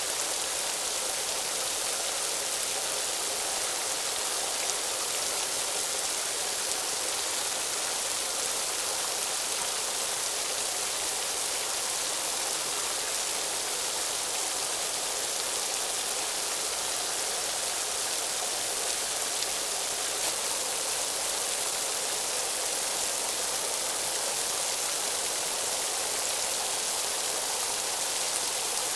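A steady, even hiss of noise, strongest in the high range and unchanging throughout.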